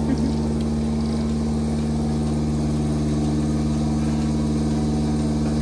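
Milking machine's vacuum pump running steadily, an unchanging mechanical drone.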